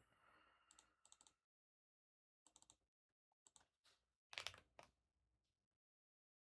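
Faint clicking and tapping on a computer keyboard in short bursts, with a louder cluster of clicks about four seconds in.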